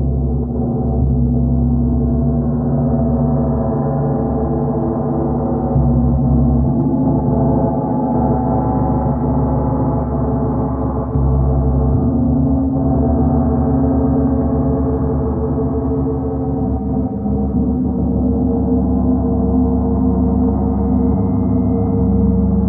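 Paiste gongs being played: a dense, sustained wash of many overlapping deep tones, swelling louder as fresh strokes land about six and eleven seconds in.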